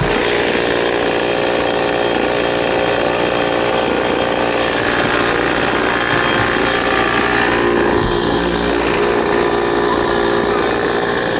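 Comer 50cc two-stroke kart engines idling together, a steady buzz that holds level throughout.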